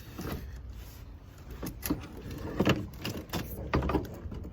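A handful of dull knocks and clunks, about five in the last three seconds: a car battery being lifted out of its tray by its handle, bumping against the engine bay.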